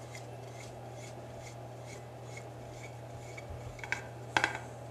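Toothed wheel being screwed by hand onto the threaded drive shaft of a hand corn sheller: a faint rubbing tick with each turn, about two a second, then a few sharper clicks near the end as it seats.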